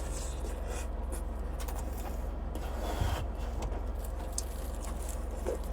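Faint rubbing and scraping of hands handling and peeling crayfish shells, with one low thump about three seconds in, over a steady low hum.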